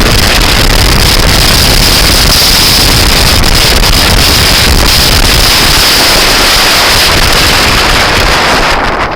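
Loud, steady wind noise buffeting the microphone on a moving scooter, easing slightly near the end.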